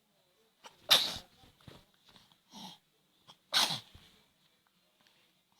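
Two short, sharp sneezes about two and a half seconds apart.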